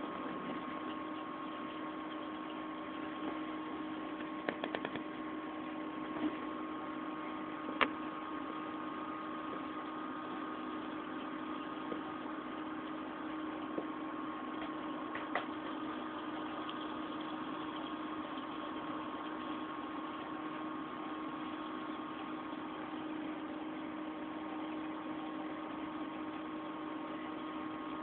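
Steady hum of a running aquarium pump, with a few short sharp clicks, the loudest about eight seconds in.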